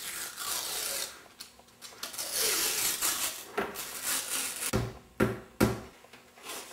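Kitchen handling sounds: scraping and rustling, then three sharp knocks about half a second apart near the end.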